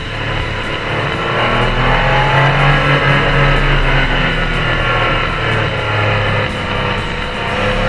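Car engine and road noise heard from inside a moving small car, with background music over it.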